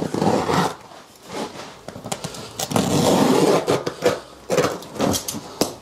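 Utility knife slicing through the woven backing of a carpet, a rasping scrape in a few runs, with the stiff carpet being handled and a few sharp clicks near the end.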